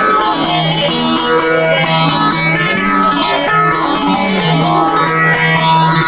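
Amplified bağlama (saz) playing an instrumental passage between sung verses, plucked notes over a steady low drone, with a slow sweeping shimmer in the upper tones.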